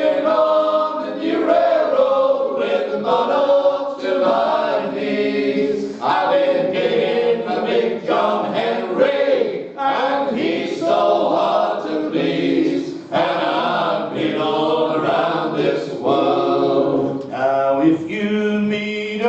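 Male vocal group singing unaccompanied in close harmony, in sustained phrases of a traditional folk song.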